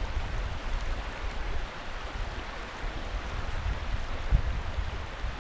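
Steady rush of flowing river water, with a low rumble underneath and a single low thump about four seconds in.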